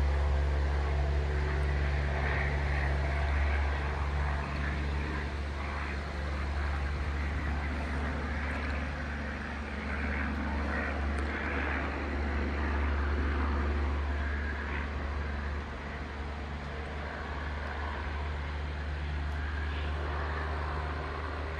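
Outdoor ambience dominated by a steady low rumble, with a fainter, uneven hiss above it that swells and fades.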